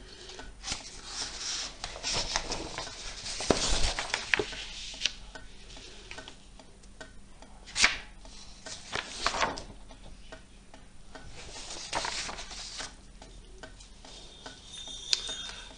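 Sheets of paper being handled and shuffled: irregular rustling in several short spells, with scattered taps and one sharp click about eight seconds in.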